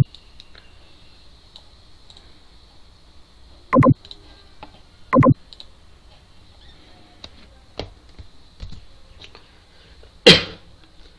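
Keystrokes on a computer keyboard as a short line of code is typed, with a few louder clicks at the start, about four and five seconds in, and again near the end.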